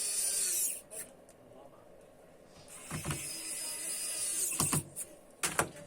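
Small handheld electric screwdriver whirring in two runs, each winding down at its end, with sharp clicks and knocks of laptop parts and screws being handled in between.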